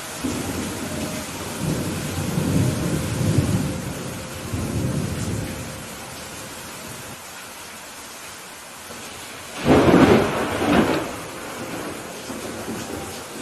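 Thunderstorm: steady rain with thunder rumbling low for the first few seconds, then a sudden, loud thunderclap with a second crack about a second later, fading back into rumble and rain.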